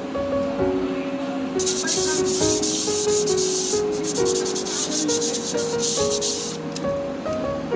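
Hand sanding of a metal bearing-fitting surface on an electric motor, with quick back-and-forth abrasive strokes starting just under two seconds in and lasting about five seconds, to smooth and clean the seat for the bearing. Background music plays throughout.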